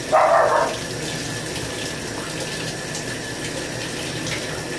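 Shower water running steadily into a bathtub, with a brief louder burst in the first second.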